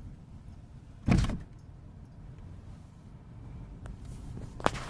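A low steady rumble, with one loud, short thump about a second in and a sharp click near the end.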